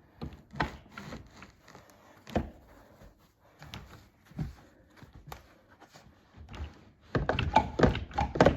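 Wooden knocks and thuds of sofa bed frame sections being lifted and clipped together by hand, scattered at first, then a quick run of louder knocks and rattles near the end as the connector clips engage.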